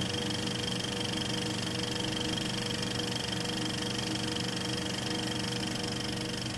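Steady mechanical whirring and rapid clatter of a film projector running, with a constant hum under it.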